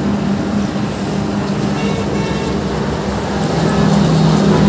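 Steady road traffic noise from passing vehicles, with an engine drone that grows louder near the end.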